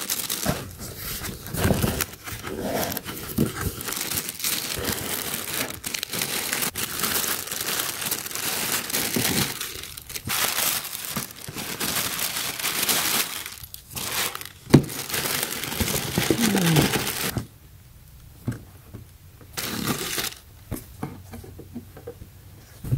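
Tissue paper and paper wrapping crinkling and rustling as a sneaker box is unpacked, with one sharp knock about two-thirds of the way through. The rustling turns much quieter and sparser for the last few seconds.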